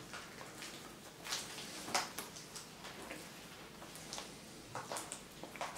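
Faint rustling and scattered crisp ticks of dry esparto grass strands being braided by hand.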